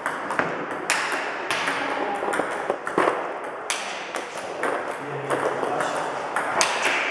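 Celluloid-type table tennis balls clicking off rubber rackets and bouncing on the tabletop in a multiball drill: balls fed from a bowl and returned with backhand and forehand strokes. The clicks come about two a second, each sharp with a short ring.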